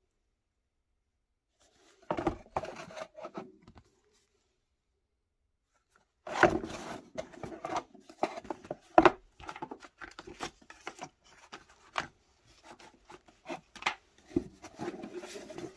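Small kraft-card product boxes handled on a table: cardboard rustling, scraping and sharp taps as boxes are slid open and set down. A short flurry about two seconds in, then steady handling from about six seconds on.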